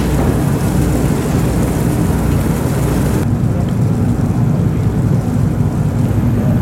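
Car ferry's engines running with a steady low rumble, mixed with wind and water hiss while the ship is under way leaving the pier; the hiss in the upper range cuts off abruptly about three seconds in.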